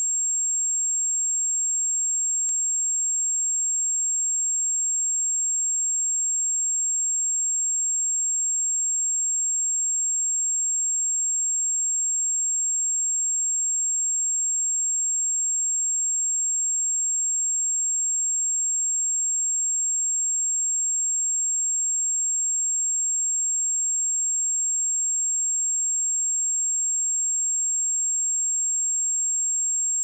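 Steady 7525 Hz sine-wave test tone: a single high-pitched pure tone held unchanged.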